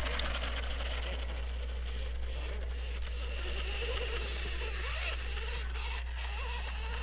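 Faint whine of a KTM electric 50 kids' dirt bike's motor, wavering up and down in pitch as it rides away, over a steady low rumble.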